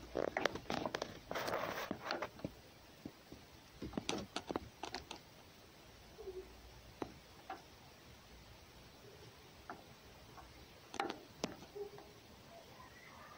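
Rustling and scraping in hay and on wooden boards as a cat climbs out through a wooden kennel's round entrance, heard as irregular clusters of clicks and crackles.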